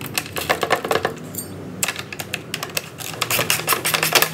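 Ratchet spanner clicking in quick runs as a nut on the go-kart's rear bar mount is tightened, with a short pause about a second and a half in.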